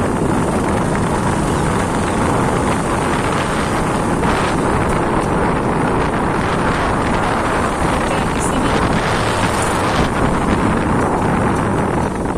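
Steady rush of wind buffeting the microphone of a moving vehicle, mixed with the vehicle's running noise.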